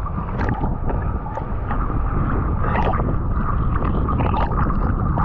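Seawater sloshing and splashing close to the microphone as a swimmer moves through the sea, over a steady low rumble, with scattered short splashes.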